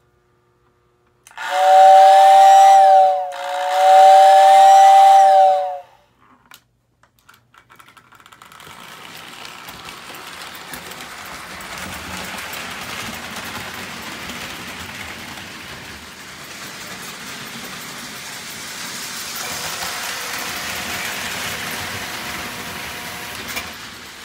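A Lionel whistle tender's electric whistle blows twice, two-note blasts of about two seconds each, a little over a second in. After a few clicks, the 1948 Lionel 2025 steam locomotive pulls away: its motor and wheels give a steady running noise on the three-rail track.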